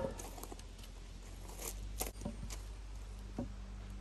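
A few light, irregular knocks and clatters of wooden boards being set down and shifted on a concrete pad.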